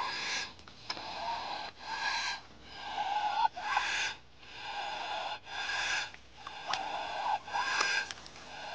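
Nutria (coypu) giving a series of short noisy calls, roughly one a second.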